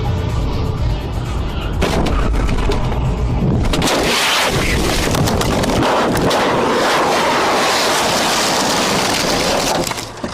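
Music with a heavy bass, joined about four seconds in by a loud rushing noise that runs about six seconds and then cuts off suddenly.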